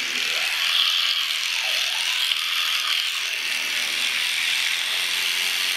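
Electric toothbrush running steadily in the mouth while brushing teeth.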